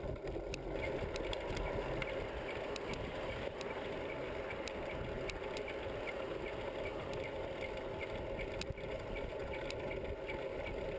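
Bicycle being ridden along a road: a steady rushing noise of movement and tyres, with light ticks and occasional clicks from the bike.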